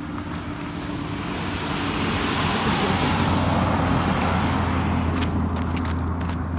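A motor vehicle passing by: a steady low engine hum with a rush of noise that swells to its loudest about halfway through and then fades, with light ticking footsteps over it.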